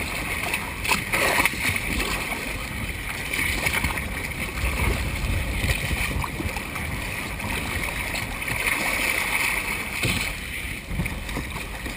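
Choppy water splashing and slapping against a kayak's hull as it is paddled through small waves, over a steady low rumble of wind on the microphone.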